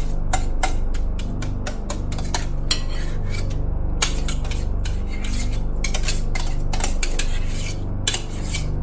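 Utensil scraping and clinking against a mixing bowl in quick repeated strokes as soft cooked potatoes are mashed and stirred to a smooth consistency, over a steady low hum.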